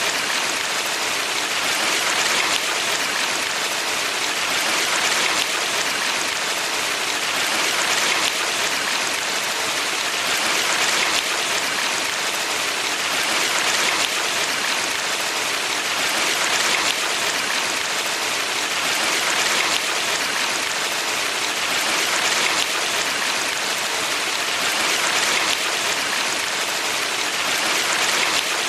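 Water rushing continuously in a valley stream: a steady, even hiss of running water that swells gently every few seconds.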